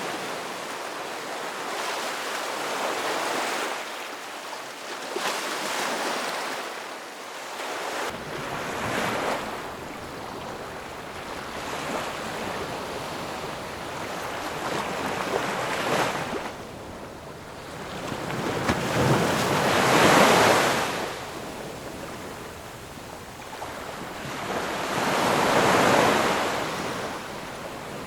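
Ocean waves breaking and washing ashore in repeated surges that swell and fall away, the two biggest in the last third.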